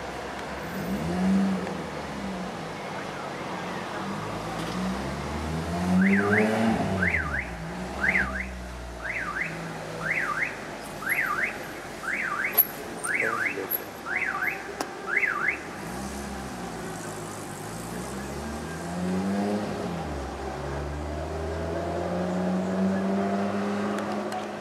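Lotus Elise engine revving up and dropping back several times as the car drives off, ending in a long steady climb in pitch. Through the middle a car alarm sounds a rising whoop about once a second, ten times over.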